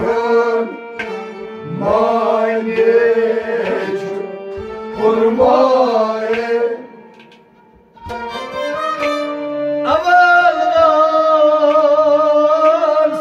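Kashmiri Sufi song: a man singing a melismatic line over instrumental accompaniment, the music dipping briefly before a long held note that steps up in pitch near the end.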